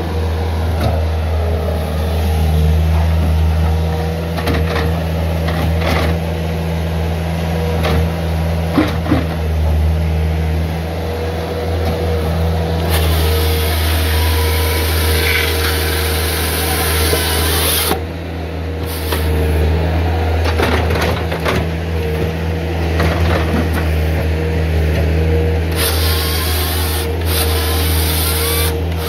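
Bobcat S300 skid steer's diesel engine running steadily while the GSR-55 grapple saw's hydraulic chain bar cuts through a log twice, a long cut about halfway through and a shorter one near the end. A few knocks from logs being gripped and dropped come earlier.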